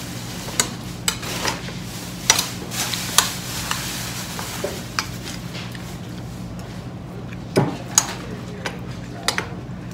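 Metal spoon clinking and scraping against a dish while eating: scattered light clicks, roughly one every second or so, over a steady low hum.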